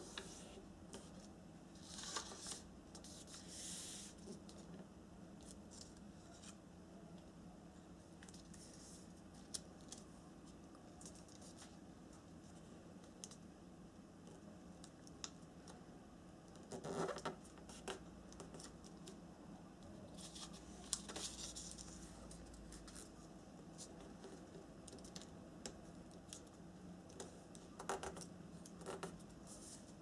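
Origami paper being folded and creased by hand on a wooden table. Faint rustling, crinkling and sliding, with scattered small taps and a few louder rustles spread through, over a faint steady hum.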